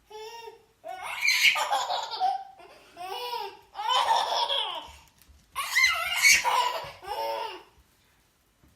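Baby laughing hard: belly laughs in about five separate bursts, falling quiet near the end.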